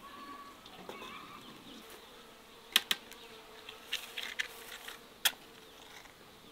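A flying insect buzzing steadily close by, its hum wavering slightly, with a few sharp clicks over it: two close together, a small cluster, then one more.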